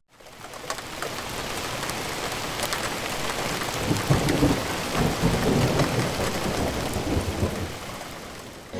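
Heavy rain falling steadily, with low rolls of thunder about four to six seconds in. It fades in at the start and eases down near the end.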